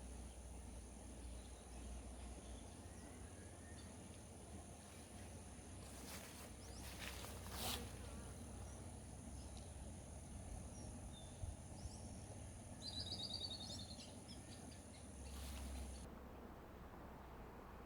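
Faint outdoor nature ambience: a steady high insect drone, with a low rumble underneath. A quick bird trill of rapidly repeated short notes comes about 13 seconds in, and the insect drone cuts off near the end.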